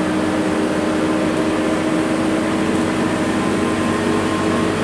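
Scania K230UB bus's rear-mounted engine running steadily as the bus cruises, heard from inside the passenger cabin along with road noise.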